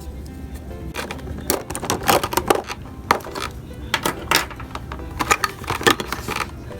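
Small plastic toy pieces being handled and set down, in quick irregular clicks and taps.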